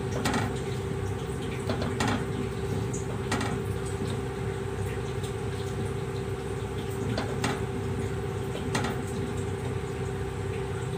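Wooden spoon stirring tapioca pearls cooking in milk in a steel pot, with a few soft knocks of the spoon against the pot at irregular moments over a steady background hum.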